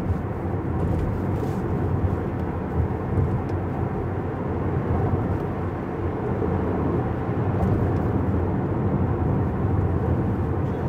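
Steady road noise of a car driving at speed: engine and tyre rumble with no sharp events.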